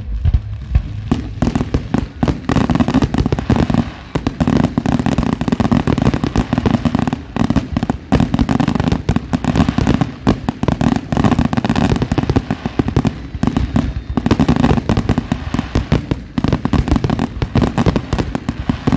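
Fireworks display: a dense, continuous barrage of bangs and crackling, many shells bursting in quick succession without a break.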